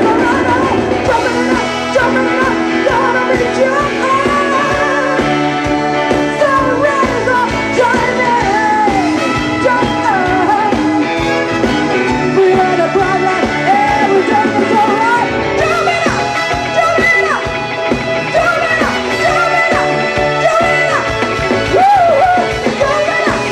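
Live band playing a medium-tempo jazzy soul tune, with a lead vocal melody gliding and wavering over the accompaniment.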